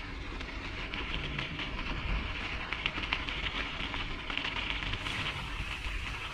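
Mountain bike rolling along a packed-dirt trail: tyres crunching over grit with a steady patter of small clicks and rattles from the bike, over a low rumble.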